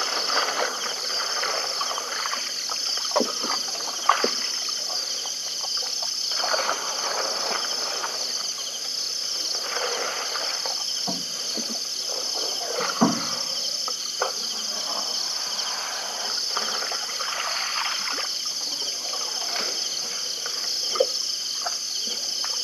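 Night insects, crickets trilling steadily in a high, evenly pulsing chorus. Scattered short knocks and clicks sound over it, the sharpest about thirteen seconds in.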